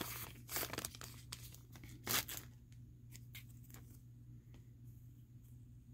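Foil wrapper of a trading card pack crinkling and tearing as the cards are pulled out, for about two and a half seconds, then a few faint clicks of the cards being handled.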